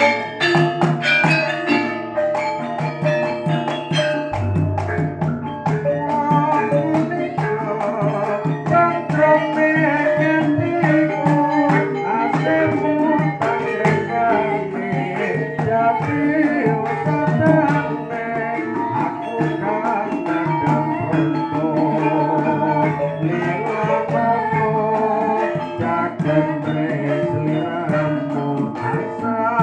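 Javanese gamelan ensemble playing: bronze metallophones and gong-chimes ring out a busy interlocking melody over kendang hand drums, with a deep low tone entering about four seconds in.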